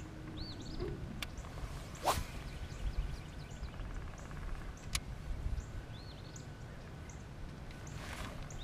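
Small birds chirping again and again over a low rumble, with a few sharp clicks and a short swish about two seconds in.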